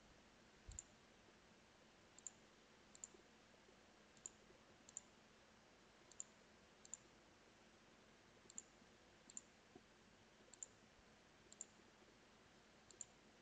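Faint computer mouse clicks, about eleven single clicks spaced roughly a second apart, each one trimming away a sketch line. There is also one soft low thump just under a second in.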